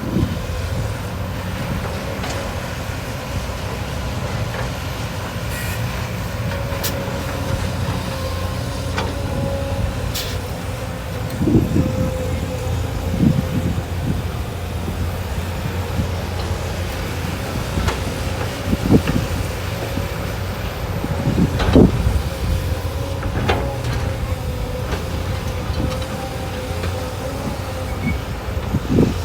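Excavator's diesel engine running steadily with a constant whine, and several heavy thumps scattered through, the loudest about 22 seconds in.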